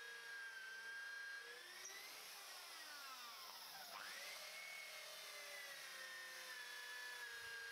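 Corded electric drill running as it bores into a timber post, a steady faint whine. About halfway through, the whine dips in pitch, then climbs back up.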